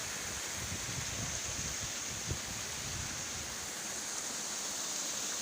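Steady rush of the Kewai waterfall and its stream: an even, hissing roar of falling and running water, with an uneven low rumble underneath.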